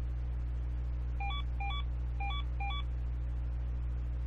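A steady low hum, with four short electronic beeps a little over a second in; each beep is two quick notes, the second higher than the first.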